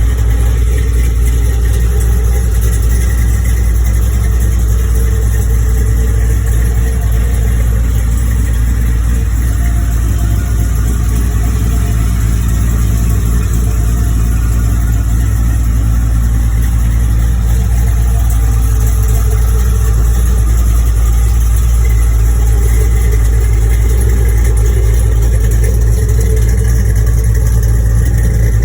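A 6.0-litre LS V8 in a Chevrolet squarebody truck idling steadily.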